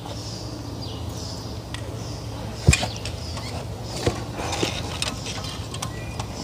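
Screwdriver working against the clutch disc and plate of a Volvo truck double-disc clutch assembly, nudging the disc into line: a few sharp metal clicks, the loudest about two and a half seconds in, over a steady low hum.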